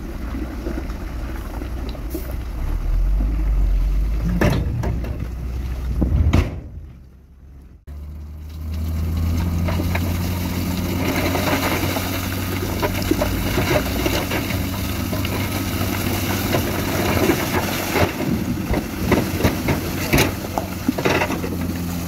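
Heavy diesel engine of a tipper dump truck running steadily while broken rock slides and clatters out of the raised bed. The sound dips and breaks off abruptly about seven seconds in, then resumes with a steadier engine hum under many short knocks of tumbling stone.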